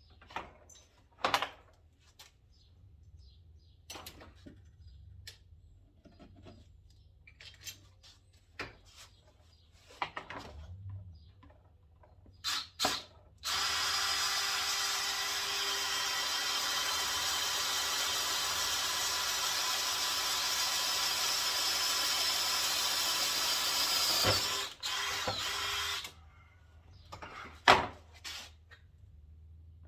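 A few handling clicks and knocks, then a power drill runs steadily for about eleven seconds, stops, and runs once more for about a second, drilling a hole for a bolt.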